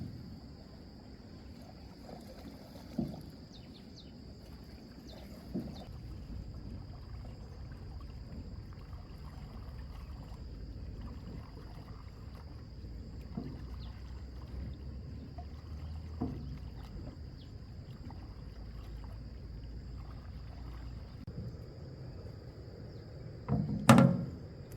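A small boat moving on a lake: low water sounds with scattered wooden knocks against the hull, and a louder thump near the end.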